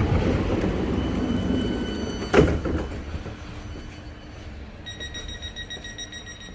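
Commuter train at boarding: a low rumble with a single sharp knock about two seconds in, then quieter, with a steady high electric whine.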